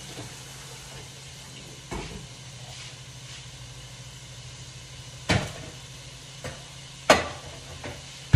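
Sharp knocks and clatters of kitchen things being handled, the two loudest about five and seven seconds in, over a steady low hum.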